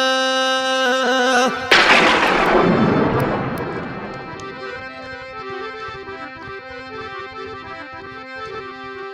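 Instrumental introduction to a Rajasthani folk song: a held reedy chord, broken about two seconds in by a sudden loud crash that fades over a couple of seconds, then quieter, shorter reedy notes over a steady low drone.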